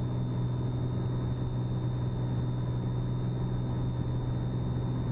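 Piper M350's turbocharged six-cylinder piston engine and propeller at full takeoff power during the takeoff roll, a steady low drone heard inside the cockpit, with a thin steady high whine above it.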